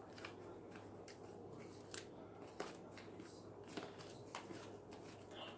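Fluffy homemade slime, made from glue and shaving cream with Orbeez worked in, being squeezed and kneaded in the hands, giving faint, irregular sticky clicks and crackles.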